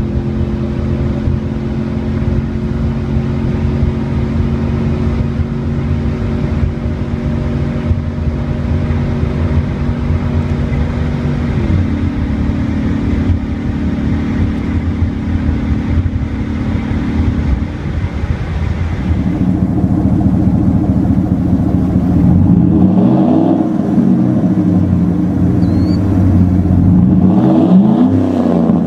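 Ford Raptor 6.2L V8 engine running steadily, its pitch stepping down slightly about twelve seconds in. After a change partway through, a GMC Sierra 6.2L V8 exhaust is revved twice, each rev rising and falling, about 23 and 28 seconds in.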